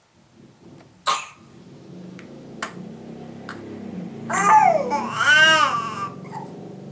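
A small child coughs once, sharply, about a second in, then makes two loud high-pitched wailing vocal sounds that rise and fall in pitch.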